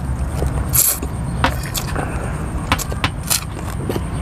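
Rice noodles being slurped and chewed close to the microphone, with a series of short wet mouth clicks and smacks and a hissing slurp about a second in. A low rumble sits underneath and thins out about two seconds in.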